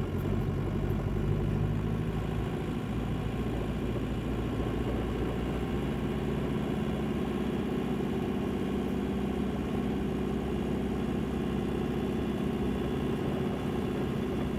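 Reynolds-Boughton RB44 truck's diesel engine running steadily as the truck drives through snow, a low even engine note throughout.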